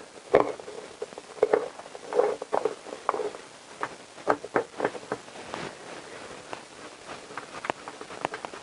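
Light, irregular metallic clicks and taps from a T-handle driver turning small bolts into an engine's clutch cover. The clicks come in clusters through the first five seconds or so and thin out after that.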